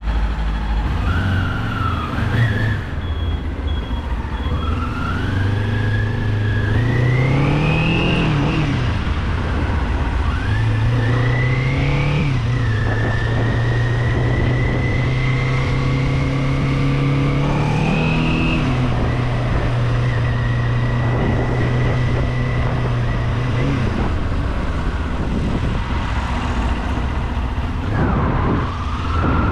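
Kawasaki Z400 parallel-twin engine heard from the rider's position, pulling up through the gears: the engine note climbs and drops back at each shift, then holds a steady cruise with a high whine riding above it, over a constant rush of wind. Near the end the engine eases off and then picks up again.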